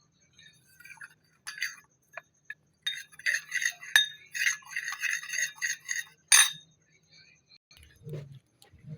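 Kitchenware clinking and tapping: a quick run of light clinks over several seconds, with two sharper, louder ones, as spices are added to chicken.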